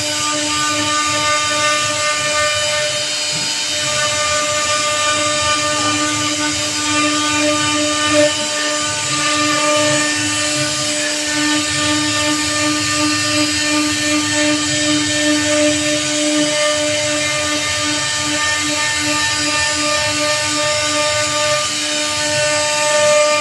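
CNC router spindle running steadily as its bit carves a teak door panel. It makes a steady whine over the hiss of the cut.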